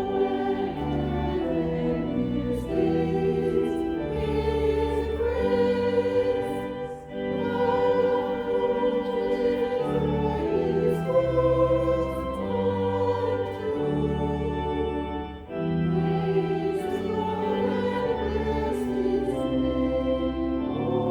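Choir singing with organ accompaniment, slow held chords over sustained bass notes.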